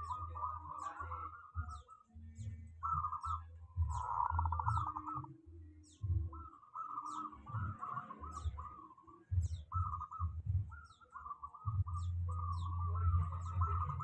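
Birds calling: a short, high, falling chirp repeats every second or so over a lower, broken warbling and trilling call. An intermittent low rumble runs underneath.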